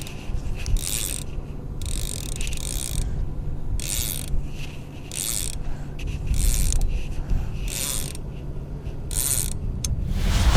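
Fishing reel ratcheting in short bursts, roughly once a second, as line pays out, over a low steady hum.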